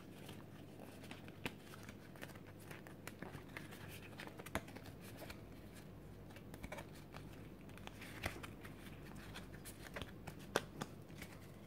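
A stack of Pokémon trading cards handled in the hands, fanned out and shuffled: faint rustling of the card faces sliding over each other, with scattered small clicks from the card edges.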